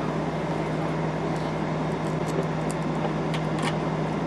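Steady machine hum with a low drone throughout, with a few faint small clicks in the second half as a hand screwdriver turns screws into the lock's metal end plate.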